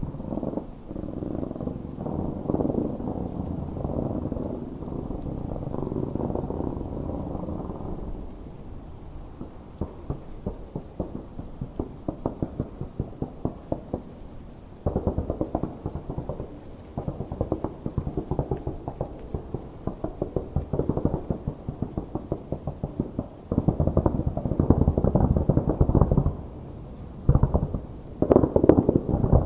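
Fireworks crackling and popping in rapid, dense runs, with low booms underneath. The crackle thins out for several seconds mid-way, then builds again and is loudest near the end.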